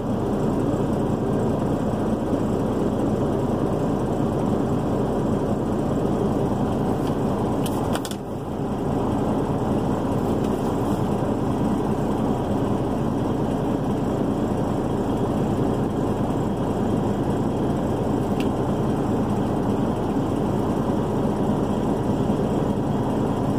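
Semi truck's diesel engine idling steadily, heard from inside the cab as a low even drone, with a brief dip and click about eight seconds in.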